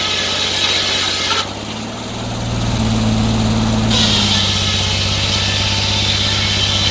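Sawmill engine running steadily while the saw blade cuts through a pine log, with a hiss over the engine note. About a second and a half in, the cutting hiss drops away and the engine note shifts upward for a couple of seconds, then the hiss returns.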